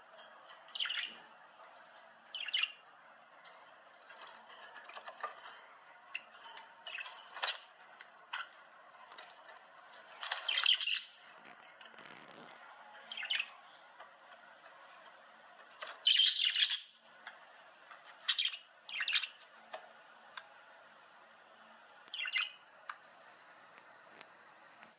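A bird chirping and squawking in short calls every second or two, over a faint steady background hiss. The loudest calls come about ten and sixteen seconds in.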